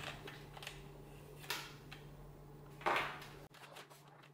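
Quiet handling of a 3D-printed plastic model engine as a motor wire is fed through its casing: a faint click about a second and a half in, then a brief scrape about three seconds in, over a low steady hum.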